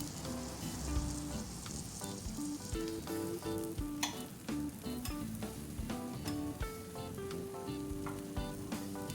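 Food sizzling and crackling as it fries in a pan, a steady hiss with scattered small pops and ticks, under light background music.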